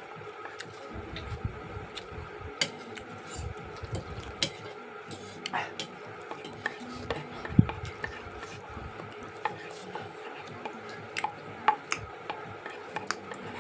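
Eating noodles from a bowl: a spoon or fork stirring and scraping, with scattered sharp clicks of the utensil against the dish throughout.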